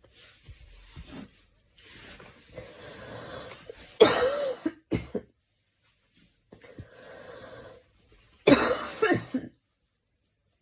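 A girl coughing in two loud bouts about four and a half seconds apart. Each bout is a short run of coughs following a quieter, noisy breath in.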